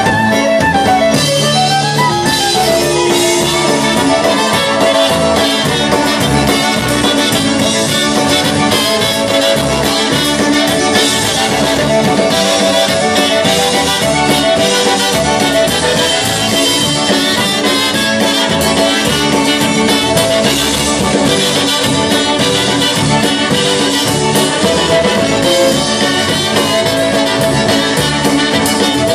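Polka band playing live: two trumpets carrying the tune, with fiddle and accordion and a steady beat underneath.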